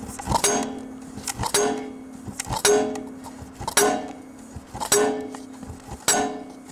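Hammer blows on a solid steel hydraulic cylinder rod used as a drift through a Corliss engine cylinder, about one heavy blow a second with lighter hits between. Each blow rings on with a clear metallic tone.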